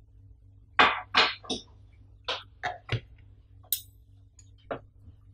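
Samson SP01 spider shock mount being turned over in the hands: a series of short clicks and rattles from its metal wire frame and ring, with one brief high metallic tink about three and a half seconds in.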